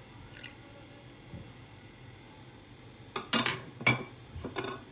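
A few sharp, ringing clinks of a kitchen utensil against a bowl about three seconds in, followed by softer clatter near the end; before that it is mostly quiet.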